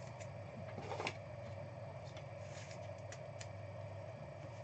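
Faint handling of trading cards over a steady room hum: a soft rustle about a second in, then a few light ticks.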